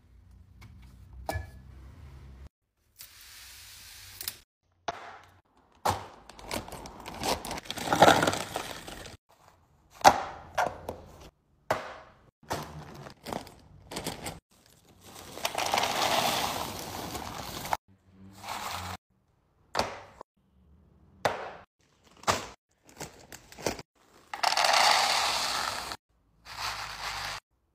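A run of kitchen handling sounds: sharp taps and knocks of containers and lids being set down and closed, with several longer stretches of rustling plastic bags and frozen vegetables rattling as bags of frozen green beans and peas are opened and emptied into plastic storage tubs.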